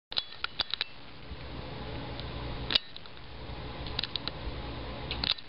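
Low steady hum of room tone with scattered light clicks: a quick cluster in the first second, one near the middle, and a few more about four and five seconds in.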